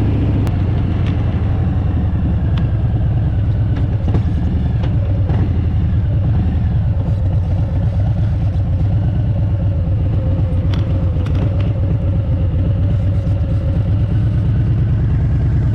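Harley-Davidson Sport Glide's V-twin engine running steadily while under way, a low, evenly pulsing exhaust note with a few light clicks.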